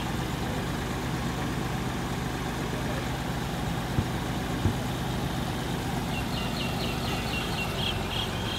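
Mahindra Bolero's diesel engine idling steadily, with two light knocks about four seconds in and a run of short high chirps near the end.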